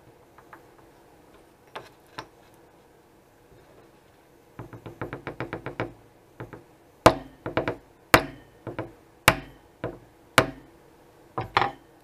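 Small hammer tapping on the shaft of a Cox Babe Bee model glow engine, the crankcase resting on a wooden block: first a quick run of light taps, then about ten harder knocks, single and in pairs, roughly a second apart. A few faint handling clicks come before the tapping starts.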